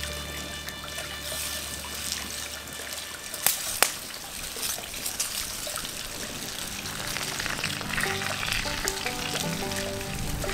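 Potatoes and peppers sizzling in a cast-iron pan over an open wood fire, with two sharp pops about a third of the way in. Background music plays over it.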